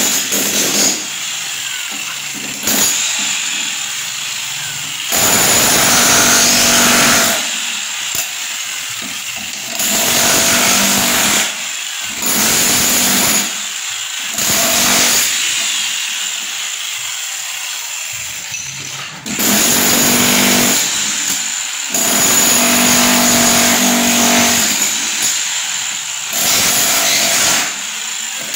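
A handheld power tool run in repeated bursts of one to three seconds, with quieter stretches between them.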